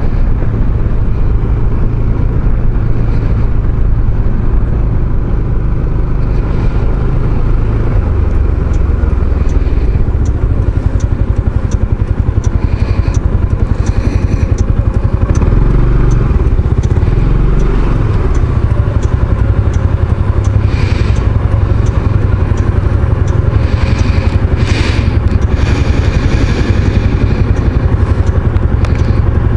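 A maxi-scooter's engine running while it is ridden, with wind and road noise. After about eighteen seconds the note drops to a slow, even pulsing as the scooter slows to a crawl.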